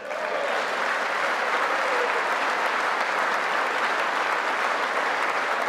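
A large audience applauding steadily in a big hall, with a few faint cheers.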